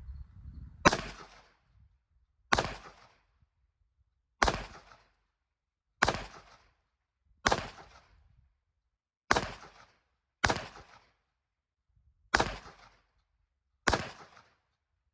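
Nine single gunshots fired one at a time at a target, about one every one and a half to two seconds, each with a short echo tail.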